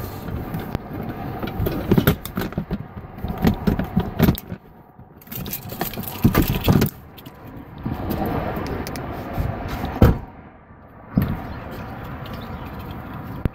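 Plastic pet carrier being handled and moved, its wire door rattling, with a run of clicks, knocks and clattering thumps in uneven bursts.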